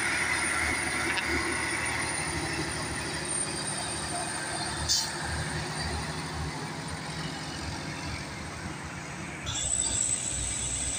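Heavily loaded truck's diesel engine running under load as the truck pulls slowly past, a steady low drone with a thin whine over it. About nine and a half seconds in it gives way to the sound of other road traffic.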